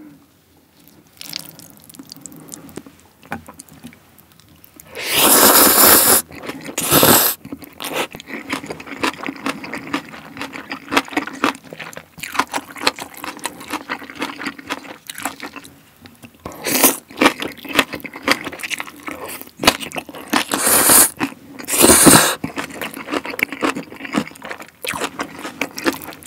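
Close-miked eating sounds of jjajang ramyeon noodles with green onion kimchi: several loud slurps, the first about five seconds in, with wet chewing and smacking in between.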